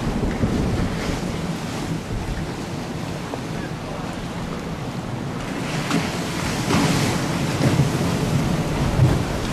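Wind buffeting the microphone over choppy river water, with waves washing. The gusts pick up about halfway through.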